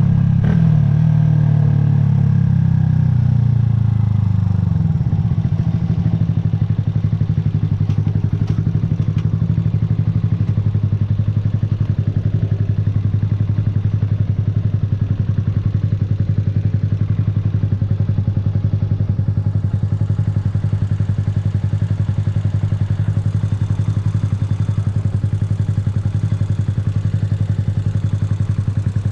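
Yamaha YZF-R125's single-cylinder 125 cc four-stroke engine, its revs dropping over the first few seconds and then settling into a steady idle.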